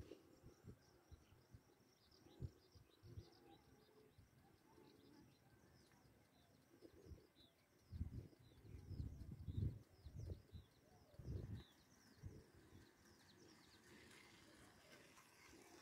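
Faint birdsong: many short high chirps throughout, over near-silent open-air quiet. A few dull low thuds come in around the middle.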